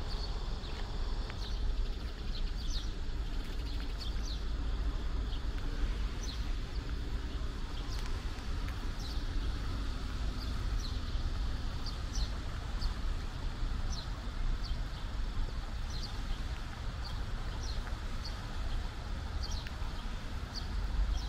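Small birds chirping in short, separate calls, many times over, above a steady low rumble.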